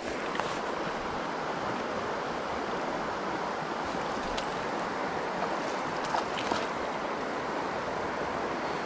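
Steady rush of a shallow, rocky creek flowing, with a few faint clicks about halfway through.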